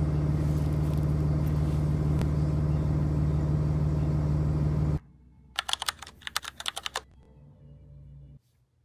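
Steady low engine-and-road drone inside a moving vehicle's cabin, which cuts off sharply about five seconds in. Then comes a short burst of rapid keyboard typing clicks.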